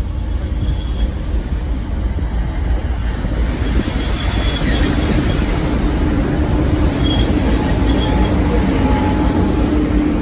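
A train rolling close by: a steady rumble of wheels on rail with thin, high wheel squeals now and then, and a steady hum that comes in about four and a half seconds in.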